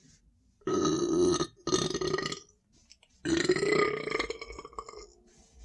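A person burping three times in a row from drinking Sprite, the carbonated soda's gas coming up. The last burp is the longest and trails off.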